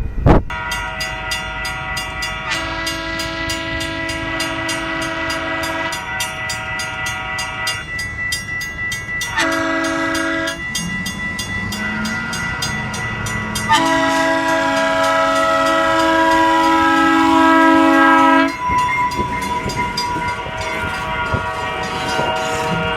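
Locomotive air horn sounding a chord of several notes: a long blast, then a short one, then another long one, as at a grade crossing. A rapid, even ticking runs underneath.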